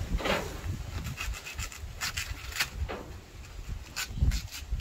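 A kitchen knife scraping and shaving along the midrib of a banana leaf: a quick, irregular run of short scraping strokes, with a dull thump about four seconds in.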